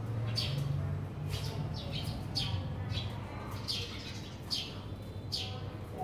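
Sparrows chirping: a string of short, high chirps, roughly one a second, over a low steady hum.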